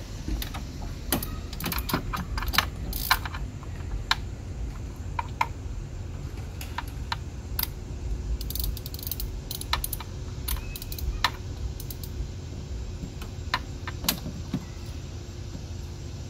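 Ratchet and socket clicking in short, irregular runs, with light metal clinks, as a stubborn spark plug on the back bank of the V6 is slowly worked loose.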